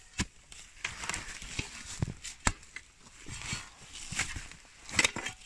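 Shovel blade digging into dry, stony soil around roots: scraping with a handful of sharp knocks, the sharpest about two and a half seconds in and another near the end.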